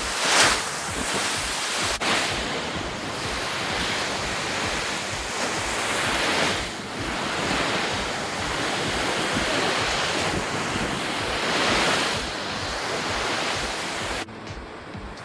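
Ocean surf washing on the beach, swelling and easing every few seconds, with wind buffeting the microphone. Shortly before the end the sound cuts abruptly to something quieter and duller.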